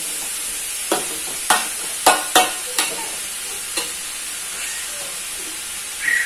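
Stir-fry sizzling steadily in the pan while a spatula knocks against it about six times in the first four seconds as the food is stirred.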